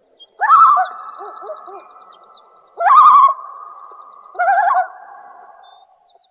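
Common loon calling: three loud calls, each opening with a quavering burst and trailing off into a long, steadier held note.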